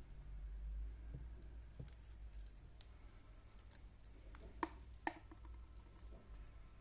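Faint small clicks and taps from handling a metal-bracelet Casio watch and its packaging, with two sharper clicks about half a second apart a little past the middle, over a low steady hum.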